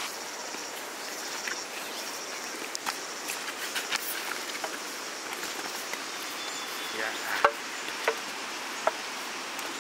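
Insects chirping high and on and off over a steady hiss, with a few sharp clicks or knocks in the last few seconds.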